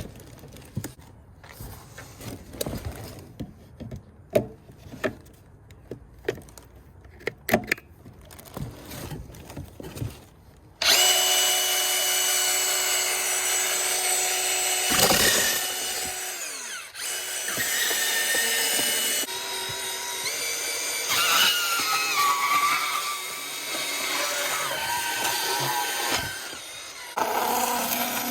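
A cordless deep-cut portable band saw starts suddenly about a third of the way in and runs with a steady whine, cutting cardboard, its pitch shifting a few times as the variable speed trigger is worked. Before it starts there are light clicks and taps of the tool being handled.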